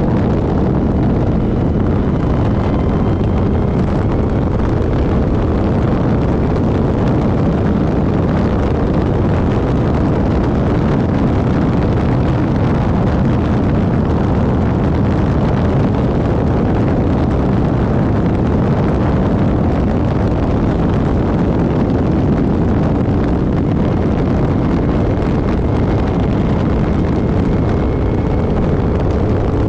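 Van Diemen RF01 Formula Ireland single-seater running, its engine mixed with heavy wind buffeting on the microphone. The sound holds steady throughout, without big rises and falls in revs.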